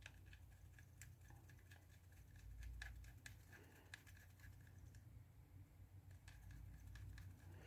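Near silence, with faint scattered small clicks and taps, typical of a phone and small tools being handled.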